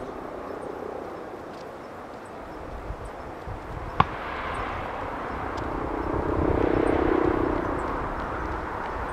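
Boeing 777-300 airliner's twin jet engines on landing approach: a steady rumble and whine that swells to its loudest about two-thirds of the way through as the jet comes in over the runway threshold. A single sharp click about four seconds in.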